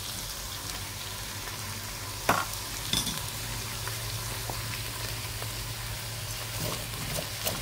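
Chopped gai lan (Chinese kale) stems sizzling steadily in hot oil with ginger in the inner pot of a preheated rice cooker, with a couple of light knocks about two and three seconds in.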